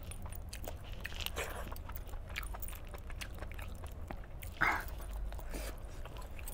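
Close-up eating sounds: wet chewing and biting as chicken in gravy is eaten and pulled apart by hand, with many small clicks and one louder mouth sound about four and a half seconds in.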